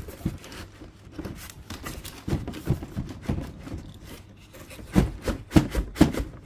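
Cardboard packaging rubbing and scraping as a tight-fitting insert is worked out of a box, with several sharp knocks near the end.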